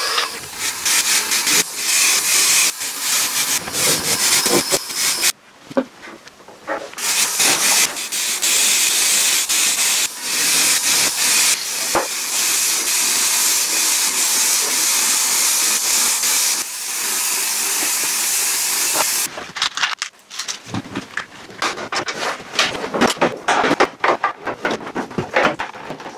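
Aerosol spray-paint can hissing in long sprays, with a short break about five seconds in, stopping about nineteen seconds in. After that, a rapid jumble of light clicks and knocks from hand work.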